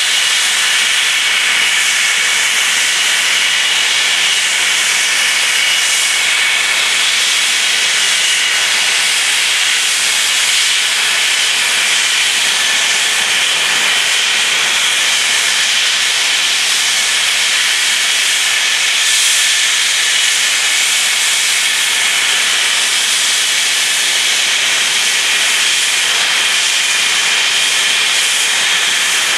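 Rolls-Royce Avon turbojets of two English Electric Lightning F6 jets idling on the ground: a loud, steady high-pitched whine over a hiss.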